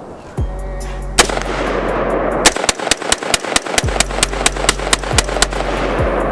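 Rapid rifle fire from AR-style rifles: one shot about a second in, then a fast string of about fifteen shots over some three seconds, roughly five a second. A hip hop instrumental beat with a deep sliding bass runs underneath.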